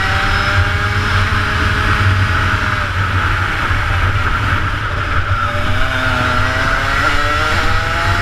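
Rotax Max kart's 125cc two-stroke engine under load, its pitch climbing along a straight, falling away about three seconds in as the kart slows for a corner, then climbing steeply again as it accelerates out.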